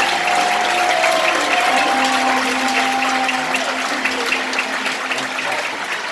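Large concert audience applauding, a dense patter of many hands clapping. A couple of held tones fade out underneath in the first half.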